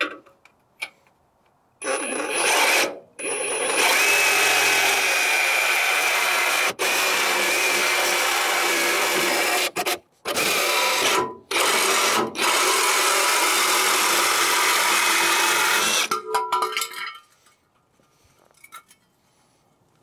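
Reciprocating saw cutting through a steel front frame rail. It runs in long stretches with a few brief pauses and stops a few seconds before the end.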